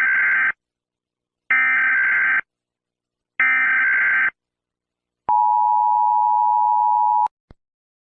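Emergency Alert System SAME header: three one-second bursts of screeching digital data tones, followed by the steady two-tone EAS attention signal for about two seconds, announcing an alert.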